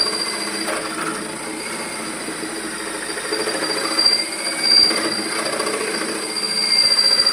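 Electric woodworking power tool running steadily, a constant high whine over rough, grinding noise.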